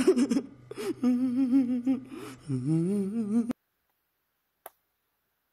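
A man's voice humming a wavering tune over a low steady drone, from an inserted comedy film clip. It cuts off abruptly about three and a half seconds in, followed by silence and one faint knock.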